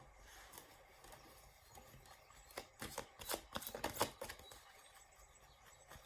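Tarot cards being handled and shuffled: a run of light, quick clicks and taps, thickest between about two and four seconds in, with a few more near the end.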